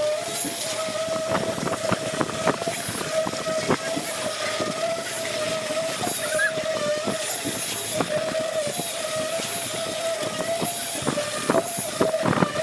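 Concrete pump running with a steady, slightly wavering whine while concrete is pushed through the delivery hose, with irregular knocks and clatter.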